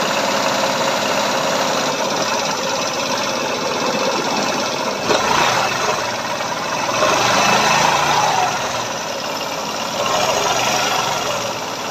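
ZENE T9 scooter engine running and being given throttle to test its newly rebuilt automatic centrifugal clutch shoes. It gets louder for a couple of seconds past the middle.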